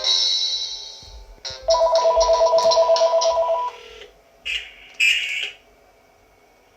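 Panasonic cordless phone ringing. A melodic ringtone fades out, then a loud, rapid two-tone electronic trill sounds for about two seconds. Two short beeps follow before it goes quiet as the call is picked up.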